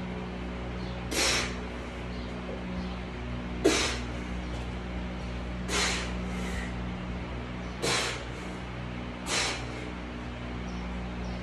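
Short, forceful hissing exhales, about one every two seconds, from a man straining through a kettlebell Turkish get-up. A steady low hum runs underneath, and there is a single sharp click a little over three and a half seconds in.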